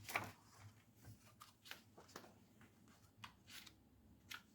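Faint rustling and light ticks of magazine pages being handled and turned, in short scattered strokes.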